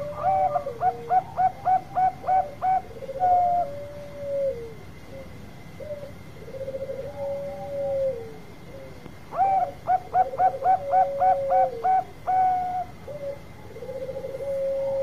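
Caged Bangkok-type zebra dove (perkutut) singing its long song twice: each phrase is a quick run of about eight clipped coos followed by a drawn-out falling coo, with softer rolling coos in between.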